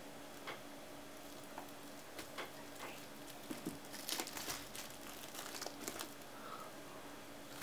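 A hobby knife slitting the plastic shrink-wrap on a cardboard kit box: scattered light clicks and scratches, then a louder spell of the film crinkling and tearing from about three and a half to six seconds in.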